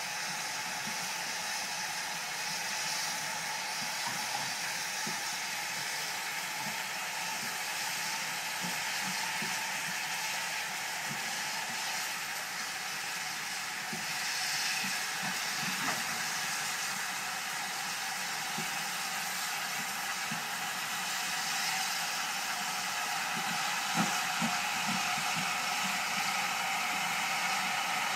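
Steady hiss of steam from standing steam locomotives, among them the BR Standard Class 7 Britannia 70000, with two faint knocks, one a little past halfway and one near the end.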